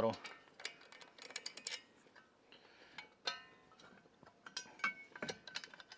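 Scattered metallic clicks and clinks, two of them with a short ring, about three seconds in and near the end, as a camping gas bottle is handled and pulled out to swap onto the stove.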